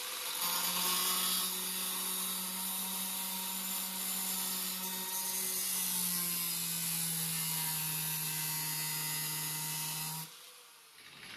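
Small angle grinder running with a cut-off disc, slicing a relief cut into a torn aluminum fender panel, with a steady motor tone over a hiss of cutting. Its pitch dips a little about six seconds in, and it shuts off about a second before the end and winds down.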